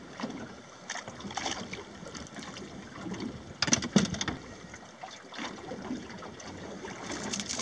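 Water lapping against a small boat's hull at rest, with a few short knocks on the boat about three and a half to four seconds in as a small fish is handled over the side.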